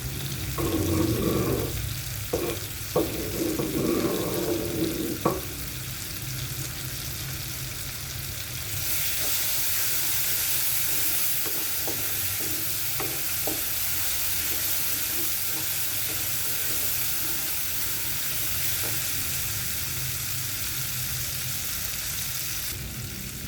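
Food frying in oil in a wok, sizzling and being stirred, with a few sharp clicks from the stirring. The sizzling gets much louder about nine seconds in and eases off again near the end.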